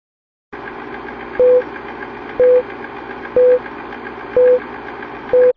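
Film-leader countdown sound effect: a steady film-projector whirr with five short beeps, one each second, starting about half a second in and cutting off abruptly after the last beep.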